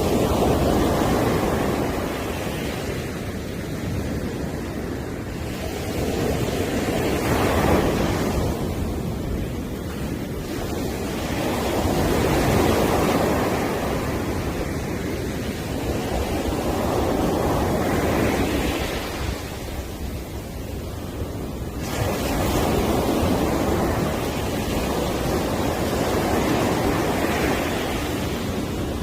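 Sea surf breaking on a beach, each wave rushing in and washing back about every five seconds, one breaking sharply near the end.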